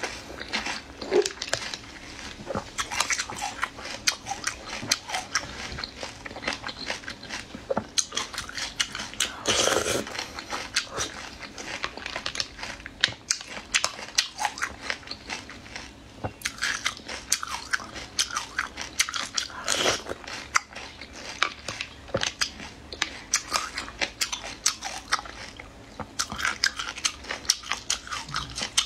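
Close-up eating sounds of small shelled seafood taken from a jar of brine: chewing and crunching with many small wet clicks, and a few louder bursts now and then.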